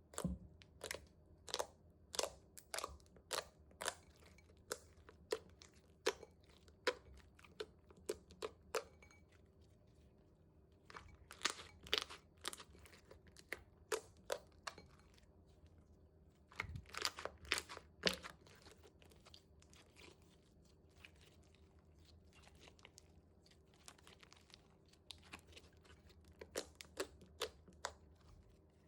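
Crisp clicking and crunching from slime-making: runs of sharp crackles a few per second, with brief pauses in between.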